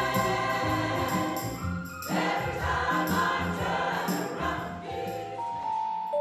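Mixed church choir singing a gospel-style song with keyboard accompaniment and a steady beat. About five seconds in, the singing fades and long, held ringing notes of another piece of music take over.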